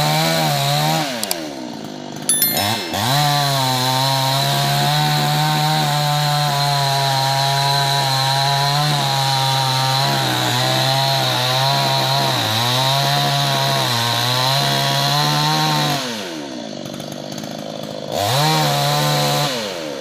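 Two-stroke chainsaw running at full throttle as it cuts into a tree trunk, its pitch dipping now and then. It drops back to idle about a second in and again about 16 seconds in, revving up briefly before falling to idle once more near the end.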